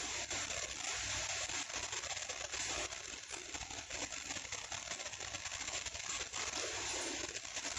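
Metal spoon stirring and scraping bottle gourd pieces in thick curry gravy in a kadai, with small clicks of spoon on pan over a steady sizzle from the cooking pan.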